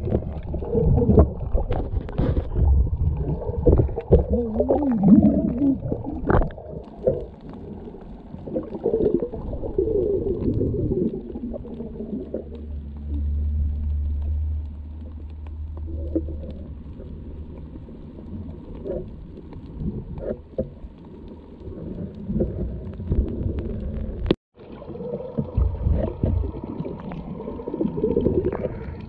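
Muffled underwater sound through an action camera's waterproof housing as a spearfisher swims: low rumbling water noise with gurgling, wavering tones. A steady low rumble runs for a few seconds near the middle, and the sound drops out for an instant with a click about 24 seconds in.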